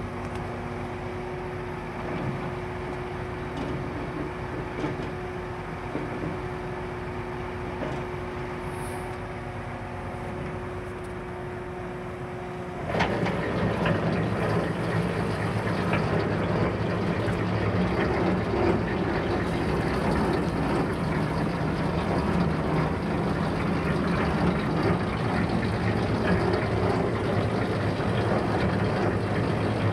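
Tractor engine idling steadily with a Farm King 1080 snowblower hitched on, then about halfway through the sound jumps suddenly to a louder, rougher running that holds steady.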